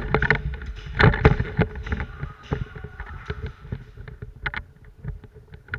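Airsoft guns firing in irregular volleys of sharp pops and clacks, densest about a second in and thinning out toward the end.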